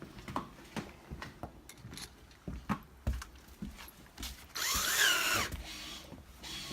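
Scattered knocks and clicks of hands and tools on the patio door handle, then about four and a half seconds in a cordless drill-driver spins for about a second, its whine rising and falling in pitch.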